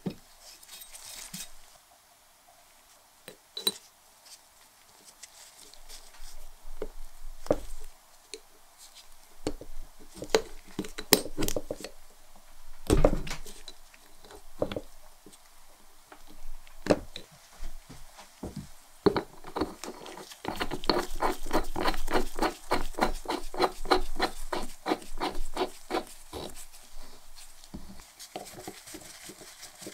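A hand screwdriver driving small round-head screws into the painted metal housing of a restored ship's light: scattered clicks and scrapes of tool and screws on metal. About two-thirds through comes a run of rapid, even clicks lasting several seconds.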